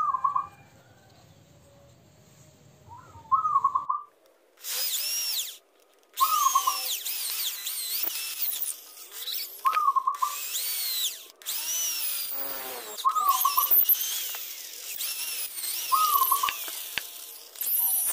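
Homemade wood lathe driven by a used water-pump motor, cutting wood: a loud, shrill noise whose pitch rises and falls, starting about four and a half seconds in with a couple of brief breaks. A bird gives a short call about every three seconds throughout.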